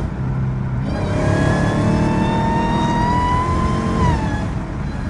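Dodge Hellcat's supercharged 6.2-litre HEMI V8 accelerating from about a second in, its whine climbing steadily in pitch for about three seconds, then dropping away near the end.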